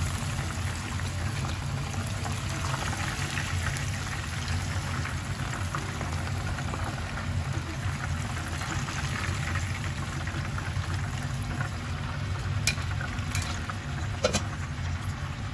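Battered chicken pieces deep-frying in hot oil, a steady sizzle with a low hum underneath. A couple of sharp clicks near the end.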